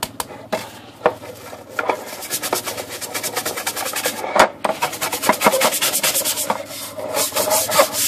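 Stiff brush scrubbing the wet, soapy black wrinkle-finish metal lid of a Royal KMM typewriter: a few separate scrapes at first, then quick back-and-forth strokes, several a second, from about two seconds in.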